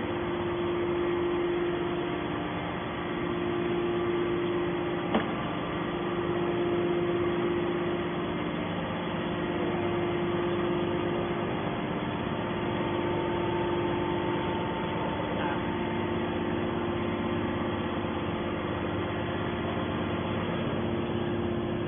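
Hydraulic scrap metal baler running steadily, a constant machine hum with a held tone, and one sharp click about five seconds in.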